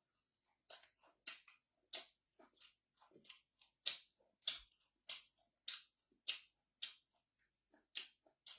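Close-miked chewing of crunchy food: a crisp crunch about every half second, in a steady rhythm.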